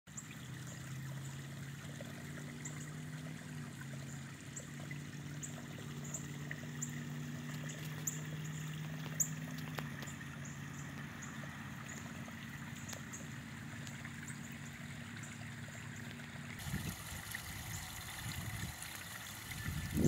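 Water trickling and splashing into a garden pond from a small rock waterfall, turning fuller and louder late on. A low steady hum runs underneath until then, and short high chirps repeat about every half second through the first half.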